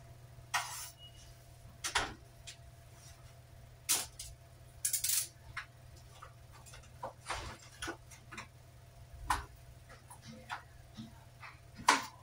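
Kitchen knife striking a wooden chopping board in irregular single cuts, sharp knocks about a second apart, over a steady low hum.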